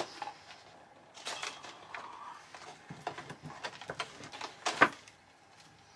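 Packaging being handled: scattered rustling and small clicks as a numbered advent calendar compartment is opened and a small plush toy is taken out. There is one sharper click near the end.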